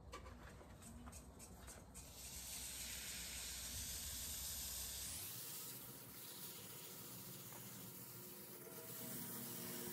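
Paper towel rubbing wax abrasive paste onto a turned tea tree vase: a few light handling clicks, then from about two seconds in a faint, steady hiss of towel on wood.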